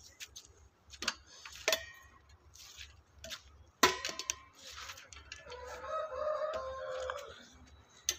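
A rooster crowing once, one drawn-out call of just under two seconds about two-thirds of the way in. Before it come a few sharp knocks and rustles, the loudest a little before halfway.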